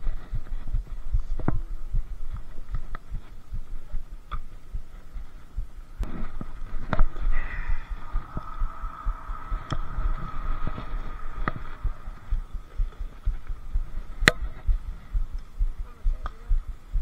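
Muffled low thumps and rubbing of handling noise on a body-worn action camera, with scattered sharp clicks, one louder click about fourteen seconds in. A faint steady tone sounds for a few seconds in the middle.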